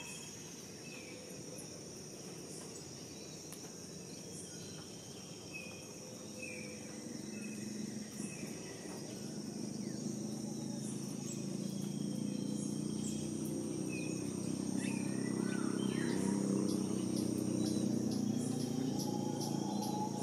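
Insects, crickets or the like, droning steadily in high continuous tones, with short bird calls repeating every second or so. A low rumble grows louder from about a third of the way in.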